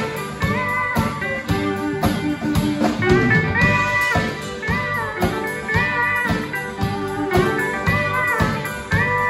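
Live band playing an instrumental passage. A pedal steel guitar plays gliding, bending chords over an electric guitar and a steady beat on a Gretsch drum kit.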